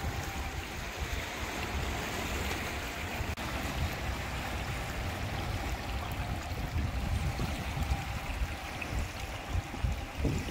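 Small waves lapping and washing over the rocks at the water's edge, with wind buffeting the microphone.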